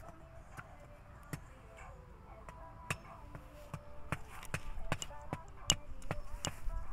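Irregular sharp clicks and knocks, coming more often in the second half, over faint distant voices.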